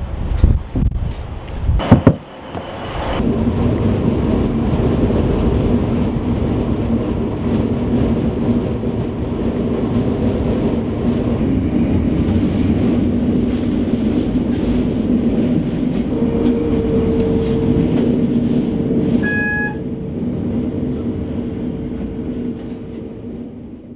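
A passenger train running steadily, with a low droning hum. A few knocks come in the first two seconds, a higher hum joins about two-thirds of the way through, and a brief beep sounds shortly after. The sound fades out at the end.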